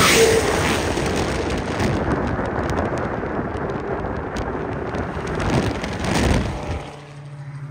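Heavy wind buffeting on the microphone of a phone held outside a car moving at freeway speed, mixed with road noise. It drops away sharply about seven seconds in, leaving a low steady hum.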